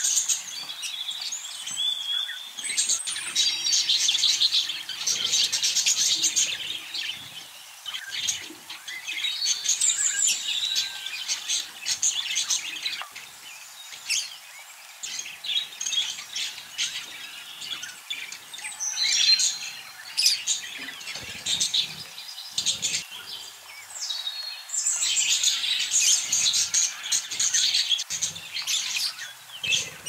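A flock of budgerigars chattering and chirping: dense high chirps come in loud bouts, with quieter stretches between.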